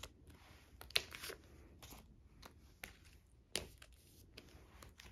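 Plastic binder page pockets and a card sleeve rustling and crinkling, with several light clicks and taps, as a photocard is handled and slid into a pocket of the page.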